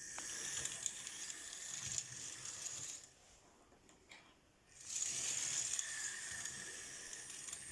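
Märklin HO-scale model locomotive running fast along the track under analog control: a high motor whine over wheel and rail noise. It runs for about three seconds, drops away for nearly two, then comes back for the rest.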